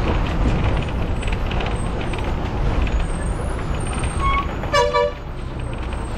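Steady rumble and rattle from inside a bus driving slowly over a rough gravel road. About three-quarters of the way in, a vehicle horn gives a short toot.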